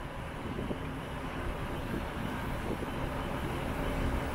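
A Northern Class 331 electric multiple unit standing at a station platform with its doors open, giving a steady low hum with a faint steady tone over the station's background rumble.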